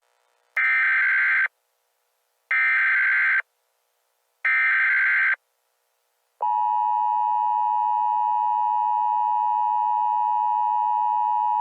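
Emergency Alert System header: three short bursts of warbling digital data tones, each just under a second long, then about 6.5 seconds in a loud, steady EAS attention tone that starts and holds.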